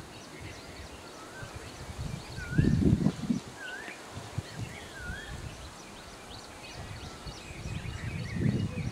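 Birds calling around the ground: one bird repeats a short wavering call four times about a second apart, over many small high chirps from other birds. A brief loud low rumble comes about two and a half seconds in.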